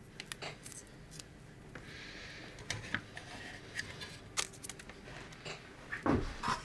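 Small handling noises from a self-adhesive cable-tie mount being pressed onto a perforated metal power-supply case: light clicks and taps, a short papery rustle about two seconds in, and a dull thump near the end.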